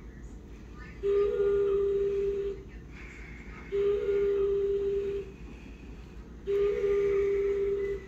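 A steady electronic hooting tone, each about a second and a half long with a brief higher blip at its start, repeating every few seconds, three times, over a low hum.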